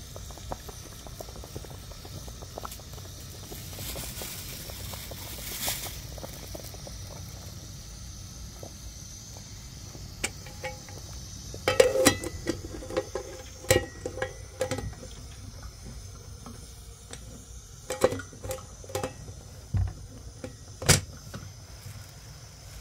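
A steady low rumble, with a cluster of sharp knocks and short ringing clinks starting about ten seconds in and a few more near the end.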